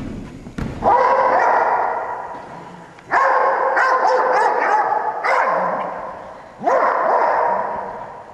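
An Australian Shepherd giving four long, drawn-out barks, each starting sharply and fading away over a second or two.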